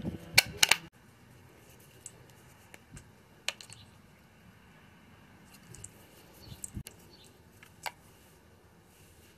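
Clicks from handling a small plastic water-alarm receiver and its wristband: two loud snaps within the first second as the battery cover is closed, then a few faint single clicks of buttons being pressed to switch the units on.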